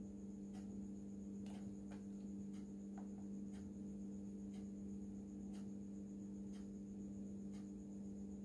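Steady low hum with a faint tick about once a second.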